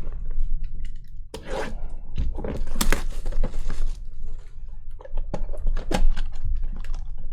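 Trading card packs and cards being handled at close range: crinkling and tearing of pack wrappers with quick clicks and rustles of the cards.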